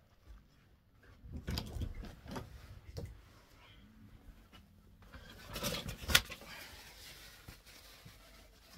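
Handling noise: rustling and scraping of the handheld phone against clothing, with a sharp click about six seconds in.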